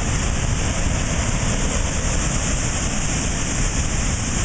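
Waterfall rushing steadily: an unbroken roar of falling water, heard from the top of the falls.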